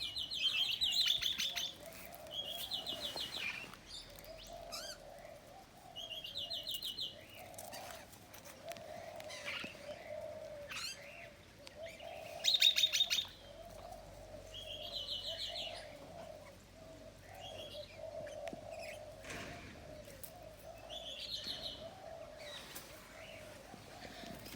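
A bird chirping in short, rapid trilled phrases, repeated every few seconds, the loudest about halfway through.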